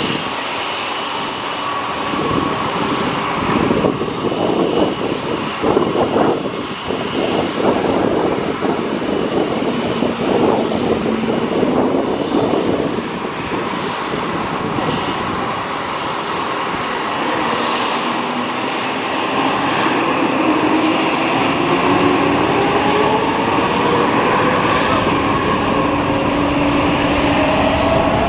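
Airbus A350-900's Rolls-Royce Trent XWB jet engines loud during the landing rollout, the noise rough and shifting. In the later part, an Airbus A321neo's Pratt & Whitney geared turbofans spool up with a steadily rising whine as it begins its takeoff roll.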